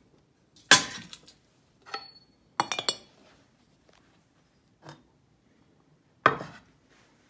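Hard clanks and clinks as the enamelled hotplate lids of a range cooker are shut and a stoneware teapot is set down and shifted on them. Two loud clanks, about a second in and near the end, with a quick run of rattling clinks about halfway through the first half.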